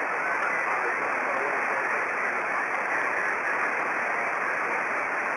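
Yaesu FT-897D transceiver receiving on single sideband between transmissions: a steady band-noise hiss from its speaker, with faint wavering traces of weak, unreadable signals under it.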